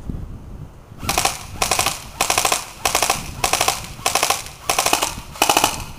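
Classic Army MP5A2 airsoft electric gun firing on full auto in short bursts, each a rapid buzz of shots. It starts about a second in, with some eight bursts at roughly two a second.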